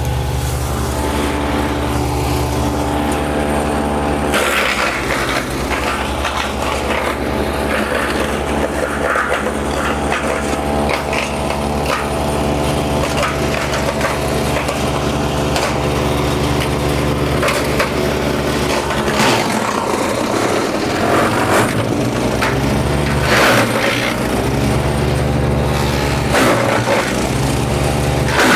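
MechMaxx P4206 wood chipper's gas engine running steadily while long brush limbs are fed in, with repeated cracking and snapping as the wood is chipped. The engine note shifts a few times as it takes the load of the branches.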